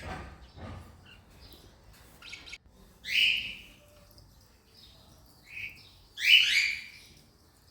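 Cockatiels giving short, harsh chirping calls. One comes about three seconds in, a shorter one follows, and the loudest, a quick pair of calls, comes a little after six seconds.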